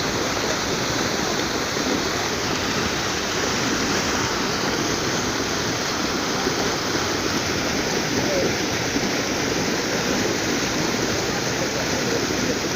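A steady rushing noise, even and unbroken.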